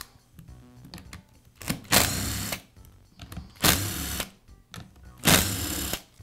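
Makita cordless screwdriver running in three short bursts, each under a second with a sharp start, as it backs out the screws holding a random orbital sander's pad.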